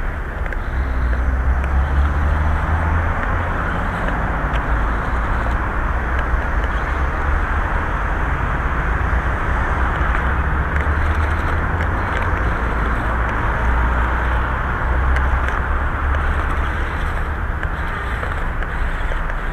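Steady outdoor background noise with a fluctuating low rumble, with no clear motor whine standing out.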